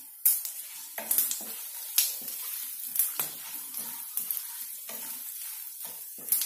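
Whole spices and cumin seeds sizzling in hot oil in a non-stick kadhai while a wooden spatula stirs them, with sharp crackles about once a second over a steady sizzle.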